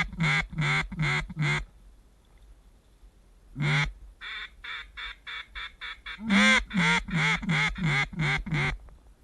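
Hand-blown duck call worked to draw in ducks circling back toward the hunters. It gives a run of about five loud quacks, a single long quack about four seconds in, a quick string of soft short notes, then another run of loud quacks that taper off.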